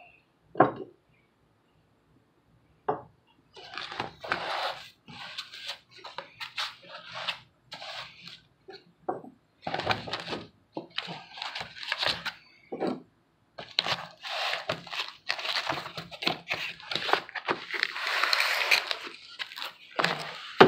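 Ceramic filter blocks and their packaging being handled: a block knocks down on a wooden table about half a second in, another knock comes near 3 s, then repeated irregular rustling and scraping of the foam insert and cardboard box as the blocks are pressed back into the foam, with a longer, denser rustle near the end.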